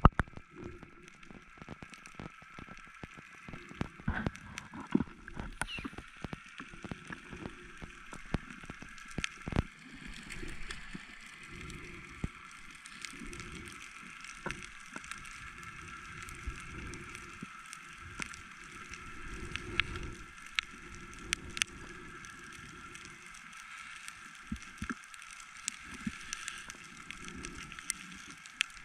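Underwater ambience picked up by a submerged camera: low, uneven rushing and sloshing of water with scattered sharp clicks and crackles throughout.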